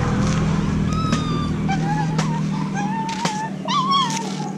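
Young dog whining, about four short, high, wavering whines, over a steady low hum.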